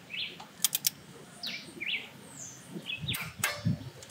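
Three quick, sharp clicks from a torque wrench on a bolt being tightened, then clunking and rattling of the tool a little before the end. Small birds chirp repeatedly with short falling chirps throughout.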